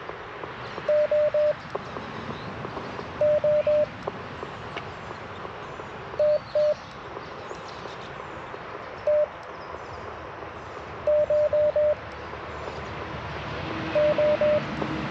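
Icom IC-705 CW sidetone: short beeps at one steady pitch, in groups of one to four dits every couple of seconds, keyed while the antenna's loading coil is being tuned. Receiver hiss runs underneath and grows louder near the end.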